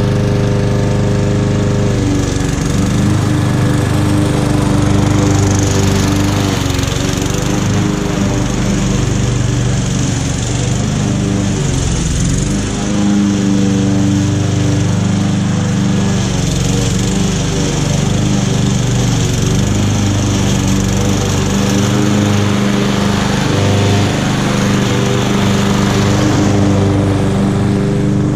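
Victa Classic Cut 18-inch petrol lawn mower running steadily while mowing grass, its engine note wavering slightly.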